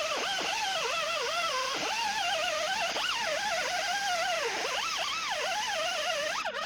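Background music: a wavering, constantly gliding electronic lead melody at a steady level.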